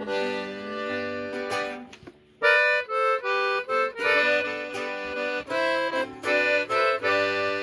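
Live instrumental intro on button accordion and strummed guitar: the accordion plays held reedy chords and melody over the guitar. About two seconds in the music briefly drops away, then the accordion comes back with short, punchy repeated chords.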